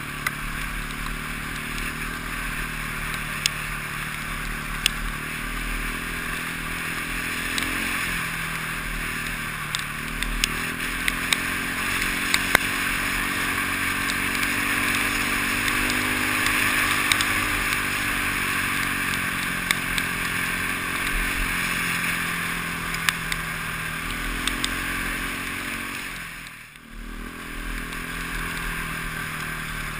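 Single-cylinder KTM enduro motorcycle engine running while riding, its pitch rising and falling with the throttle, under a steady rush of wind on the helmet-mounted microphone. Occasional sharp ticks, and the sound dips briefly near the end.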